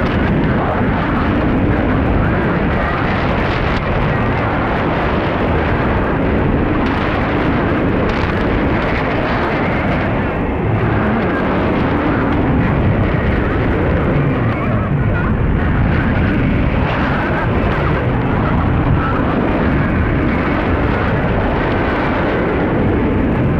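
Shortwave radio receiver on 6015 kHz putting out a loud, steady, dense rushing noise cut off at the top of the receiver's audio band: an unidentified signal that the uploader wonders may be a STANAG military data transmission.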